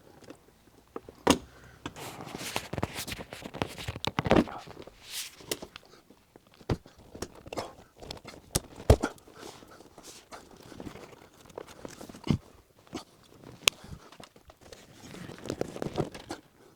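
A car headliner panel being worked free and handled inside the car: scattered clicks and knocks with rustling and scraping.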